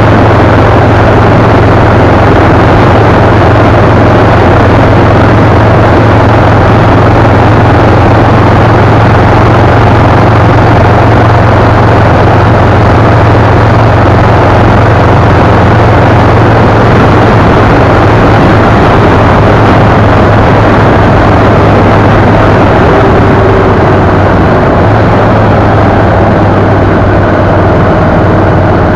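Vehicle cruising at highway speed: a steady low engine drone under loud, unbroken wind and road rush on the microphone, easing slightly near the end.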